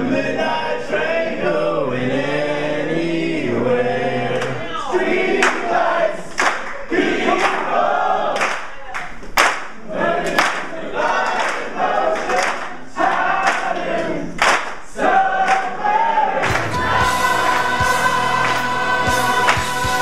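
A group of men singing together, followed by a room of people cheering, shouting and clapping. About sixteen seconds in, this gives way to music with guitar.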